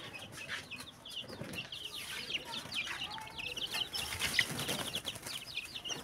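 A flock of young broiler chickens peeping without pause, many short falling peeps overlapping.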